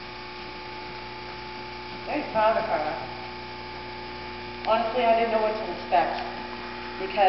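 Steady electrical mains hum, with short stretches of a voice-like sound rising over it about two seconds in and again around five seconds in.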